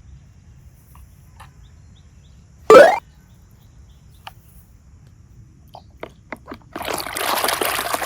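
A single short sound effect that rises in pitch about three seconds in, then a few light clicks and, from about seven seconds in, a dense wet crackling and squishing like slime being pressed and stretched.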